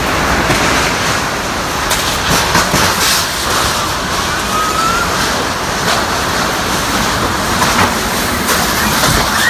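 Storm wind and heavy rain: a loud, steady rushing that surges slightly in gusts.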